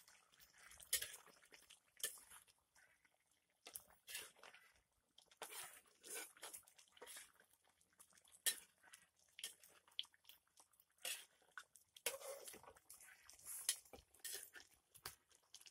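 Metal spoon stirring chicken curry in a cast metal pan, giving faint, irregular clinks and scrapes against the pan.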